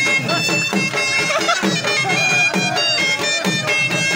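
Traditional folk dance music: a wind instrument plays a high, held melody over a steady drum beat.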